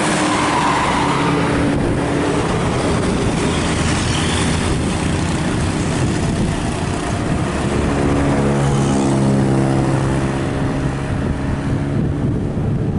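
Large buses passing at speed along the road: a loud, steady roar of engine and tyre noise. About eight seconds in, one engine's drone comes up clearly and then fades near the end.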